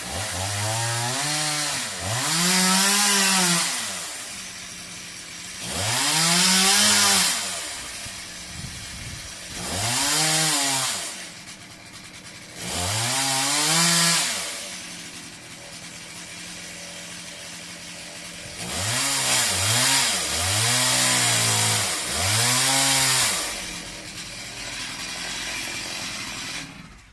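Chainsaw cutting into a tree trunk: the engine is throttled up about seven or eight times, its pitch rising and falling back each time, and idles between the bursts before it cuts off near the end.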